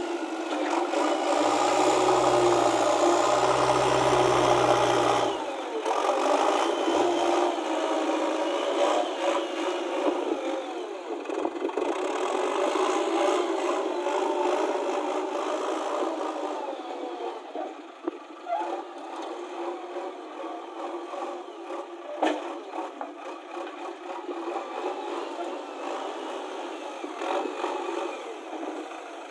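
JCB 3DX backhoe loader's diesel engine running under load and revving as the front loader bucket is raised, tipped and lowered, with rattling from the machine. It is loudest over the first few seconds, settles lower in the second half, and a single sharp knock comes about three quarters of the way through.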